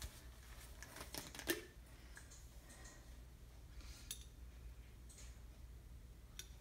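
A few light clicks and taps of a spoon and a small glass bottle being handled over a pressure cooker, over a faint steady hum. The loudest tap comes about one and a half seconds in.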